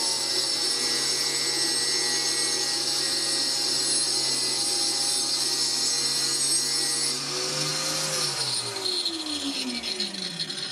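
Electric motor with a cutting disc, on a homemade lathe copying attachment, running steadily as it cuts a spiral flute into a beech blank. About seven seconds in it is switched off, and its pitch falls as it spins down.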